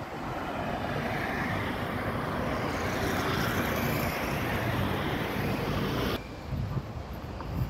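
Road traffic passing on a city avenue: a steady rush of cars' tyres and engines that swells and then drops off suddenly about six seconds in, leaving a quieter low rumble.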